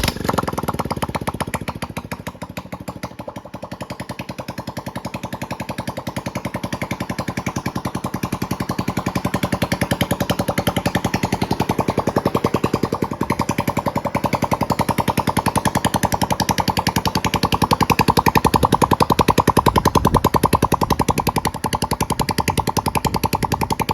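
Freshly rebuilt Honda RSX motorcycle engine, a single-cylinder four-stroke, starting and running with a fast, even exhaust beat. It picks up a little about eight seconds in and again a few seconds before the end.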